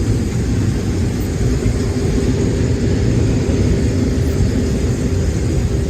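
Case IH 2188 combine running steadily while harvesting corn: a continuous low machine drone with a faint steady hum on top.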